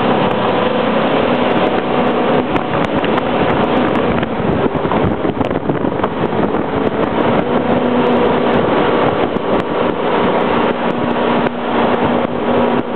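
Jet boat running at speed: a steady engine drone under a loud, constant rush of water, with wind buffeting the microphone.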